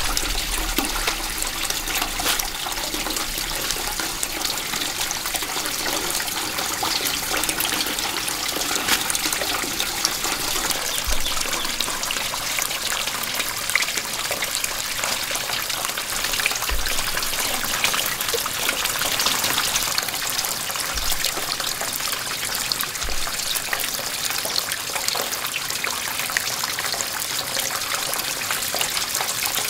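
Water running with a steady trickling, splashing flow.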